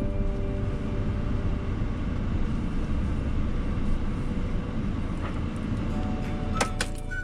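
Camper van driving slowly, a steady low rumble of engine and tyre noise heard from inside the cab.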